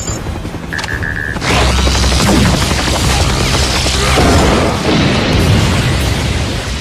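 Animated action soundtrack: booms and crashing battle sound effects over music. A short electronic beeping comes about a second in, then a dense, loud barrage of effects starts at about a second and a half.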